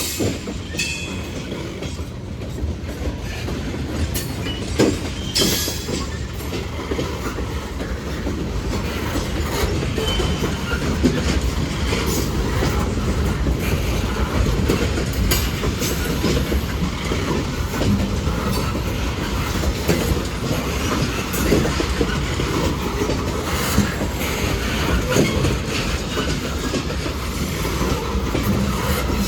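Freight cars of a manifest train rolling past: a steady rumble of steel wheels on rail, with frequent clicks and clacks over the rail joints. Brief high wheel squeals come now and then, about a second in and again around ten seconds in.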